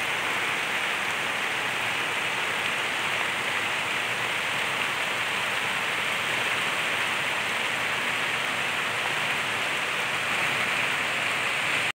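Heavy rain falling steadily on open water and grass, an even, unbroken hiss.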